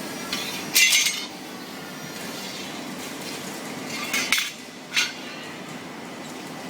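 Flange-making machine running with a steady hum. Sharp metallic clinks and clanks of metal parts come about a second in and twice more between four and five seconds in.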